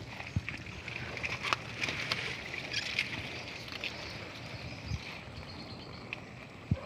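Water hyacinth being handled and pulled: leaves and stems rustling and crackling, with three dull knocks, the last near the end the loudest.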